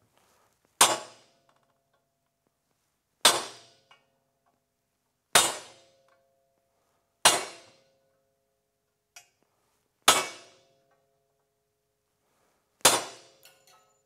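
Claw hammer striking a center punch held against a tubular running board, six separate blows a few seconds apart, each with a short metallic ring. The punch is marking the spots for drilling holes for the traction screws.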